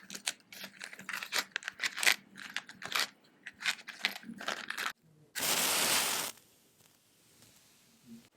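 ASMR trigger sounds made close to a microphone: a dense run of quick crackling clicks for about five seconds, then a short burst of hiss lasting under a second.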